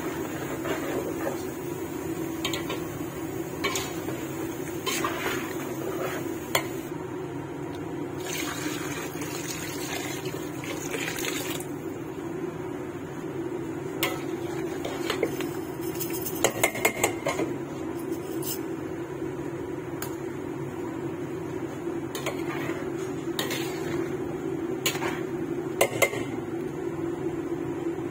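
Water being poured into a large stainless steel cooking pot of chicken, with scattered metal clinks and knocks of the pot, over a steady low hum. There is a quick run of clinks about two-thirds of the way through and another near the end.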